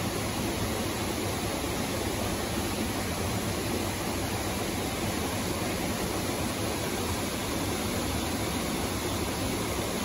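Steady rush of a mountain stream's water flowing over rocks, an even wash of sound with no breaks.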